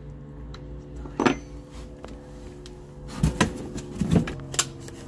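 A few knocks and rattles of parts being handled, among them a black flexible diesel-heater hose: one sharp knock about a second in, then a cluster of knocks near the end, over a steady low hum.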